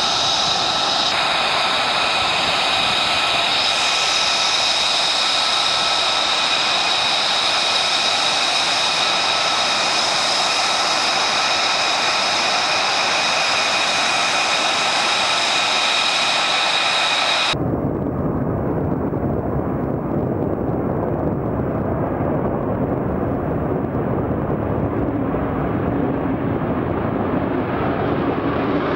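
F-35A Lightning II's single Pratt & Whitney F135 jet engine, a loud roar with a steady high-pitched whine. About two-thirds of the way in it cuts sharply to a duller, deeper rumble, and the higher sound slowly builds back in near the end.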